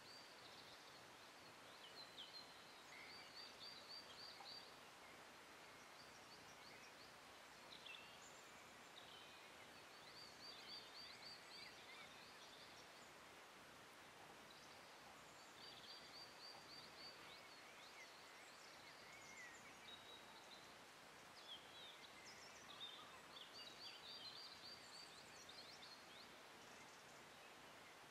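Faint birdsong over a steady outdoor hiss: a small bird repeats short, rapid, high trilled phrases every few seconds.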